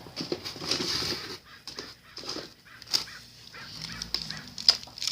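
Rustling, crinkling and light clattering of fireworks and their plastic-wrapped packaging being handled and packed, in uneven bursts with a few sharp clicks.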